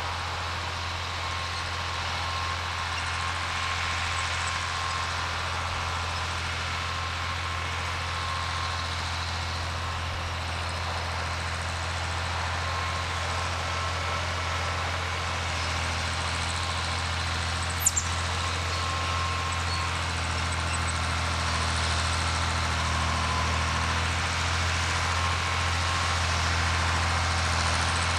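John Deere 4010 tractor's six-cylinder engine running steadily under load while pulling a chisel plow through the soil, a low drone that slowly grows louder as the tractor approaches. A single sharp click about two-thirds of the way through.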